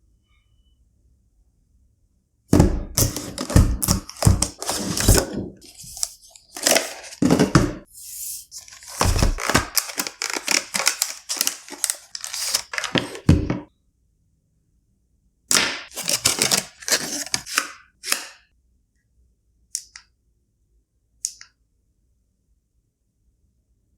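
Handling noises from unboxing: long runs of quick clicks, taps and knocks, like a box and small plastic parts being handled, then two single clicks near the end.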